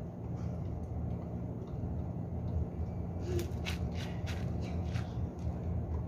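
Steady low hum, with a quick run of six or so sharp clicks and knocks between about three and five seconds in as a homemade barbell is gripped and set for a lift.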